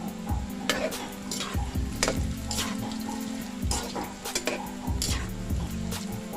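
A spoon stirring in a cooking pot, with irregular scraping and clinking strokes, over background music with a steady beat.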